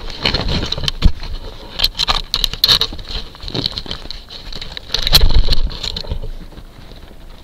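A raccoon right up against a trail camera, its fur and paws brushing and scratching at the housing and its camouflage: irregular scrapes and knocks, with a sharp bump about a second in and a louder scuffle around five seconds in.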